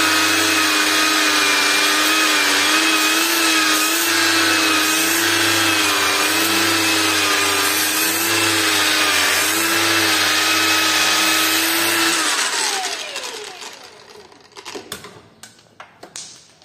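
A handheld power tool runs at steady speed, cutting open a plastic stabilizer link. About twelve seconds in it is switched off and its whine falls in pitch as it spins down, followed by a few sharp knocks as the part is handled.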